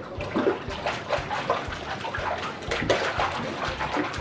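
Children's feet kicking and splashing in shallow pool water, in quick irregular splashes.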